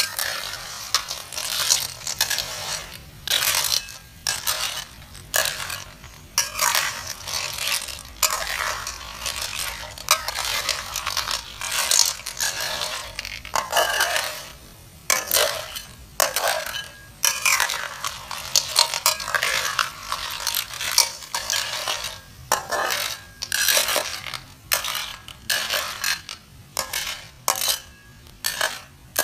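A busy run of short scraping and clattering strokes, coming irregularly about every half second to a second.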